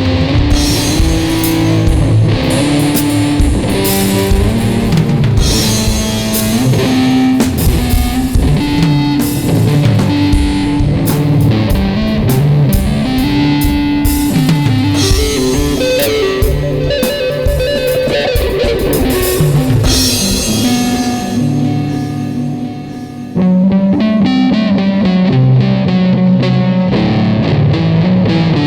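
Ibanez electric guitar played in a loose rock jam along with a drum kit. About three quarters of the way through, the drums drop out and the music fades for a moment, then both come back in together.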